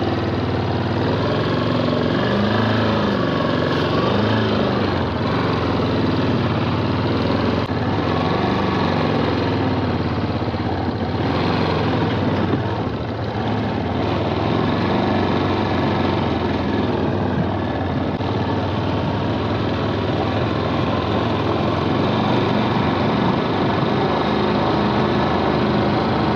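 Single-cylinder 250 cc Yamaha trail motorcycle engine running under a rider on a rough dirt track, its pitch rising and falling several times in the first ten seconds as the throttle is worked, over a steady rushing noise.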